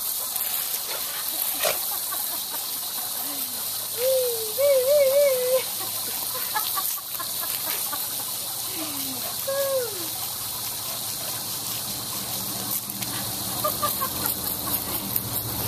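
Garden hose spray nozzle hissing steadily as the water jet sprays out. A few short wavering vocal sounds come through over it, the loudest about four to five and a half seconds in.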